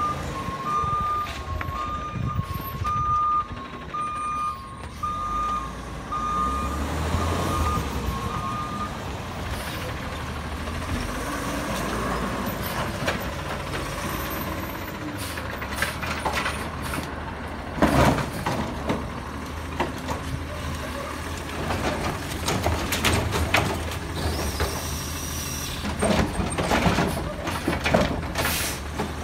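Refuse truck's backup alarm beeping about once a second for the first nine seconds while the truck reverses, over its diesel engine running. Later come several sharp, loud knocks and bangs, one about halfway through and a cluster near the end.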